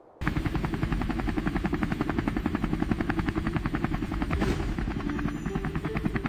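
Helicopter rotor sound effect: a rapid, even chopping beat that cuts in abruptly just after a moment of silence and runs on steadily.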